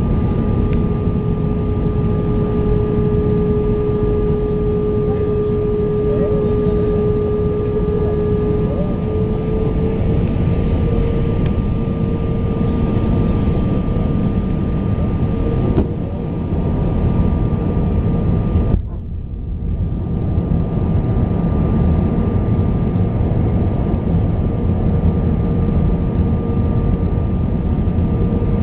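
Airbus A320 cabin noise on approach: a steady engine drone and air rush with a steady whine that steps up slightly in pitch about a third of the way in. The sound briefly dips twice about two-thirds of the way through.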